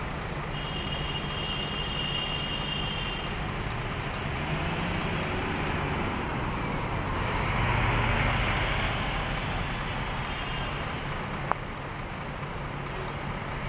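High-decker coach bus's engine running as the bus pulls away and drives close past, loudest about eight seconds in as it passes. A single sharp click sounds near the end.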